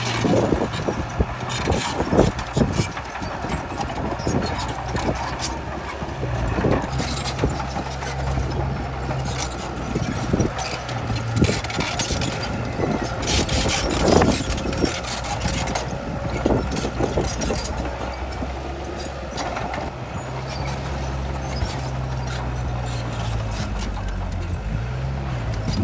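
Bulldozer's diesel engine running steadily, its pitch shifting a little now and then and rising briefly near the end, with scattered metal clanks and rattles throughout.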